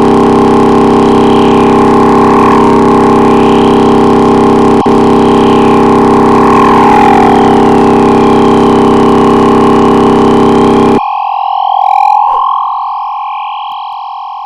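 Electronic sci-fi flying-saucer sound effect: a loud warbling tone that slowly swoops up and down over a heavy droning hum. The hum cuts off suddenly near the end, leaving the wavering tone to fade away.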